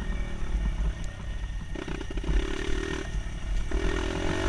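Dirt bike engine running under way. Its pitch climbs about two seconds in, dips away briefly after three seconds, then picks up again near the end, over a steady low rumble.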